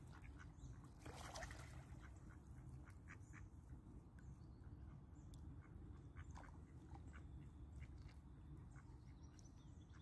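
Faint mallard duck sounds: short soft quacks and clicks over a low steady background, with a brief rush of noise about a second in.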